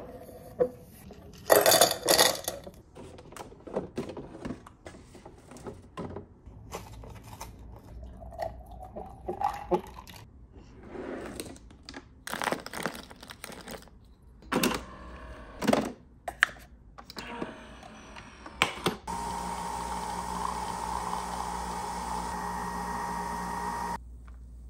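Kitchen handling sounds: a series of separate clicks and clatters of a drinking glass and Nespresso Vertuo coffee capsules being picked out of a drawer. Near the end a small kitchen appliance hums steadily for about five seconds, then stops.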